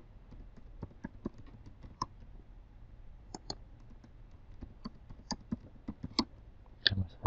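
Typing on a computer keyboard: a scatter of separate key clicks at an uneven pace, with a louder click near the end.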